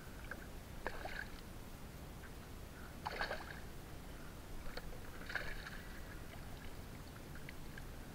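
Water splashing and sloshing beside a kayak as a landing net is dipped in the river, with a few short splashes about a second, three seconds and five seconds in over a steady low background.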